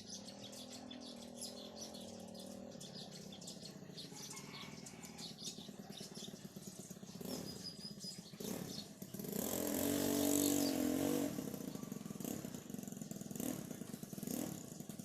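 A motor vehicle's engine swells and fades, loudest about ten seconds in, over a run of faint short high ticks.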